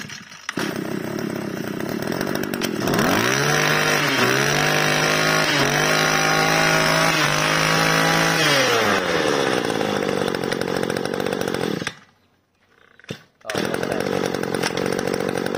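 A BigM 20cc two-stroke brush-cutter engine is pull-started and catches straight away. It revs up high for about five seconds with a few brief dips, then drops back to idle and cuts out about twelve seconds in. Pulled again, it starts at once and idles.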